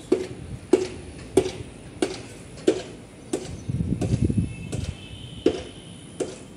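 JCB backhoe loader heard from its cab: a steady low engine rumble with a sharp click repeating evenly, about three every two seconds. The rumble swells louder for about a second, about four seconds in.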